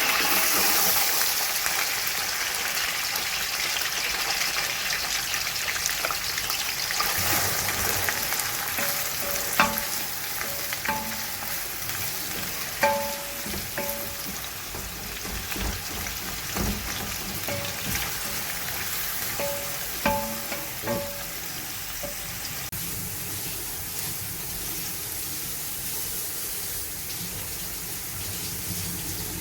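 Food sizzling as it fries in a pan, a steady hiss. A metal utensil clinks against the cookware several times, mostly between about ten and twenty-one seconds in.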